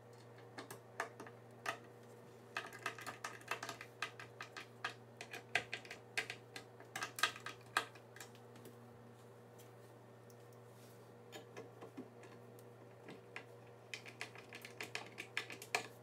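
Hand screwdriver driving screws into a metal cabinet door hinge: clusters of small rapid clicks and ticks, with a lull of a few seconds in the middle, over a steady low hum.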